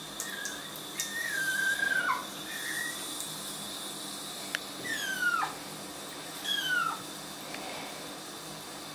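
Young kittens meowing in high, thin cries that fall in pitch: a long drawn-out meow about a second in, a few short chirps, and two more falling meows past the middle. The kittens are calling unhappily at being put in a bathtub.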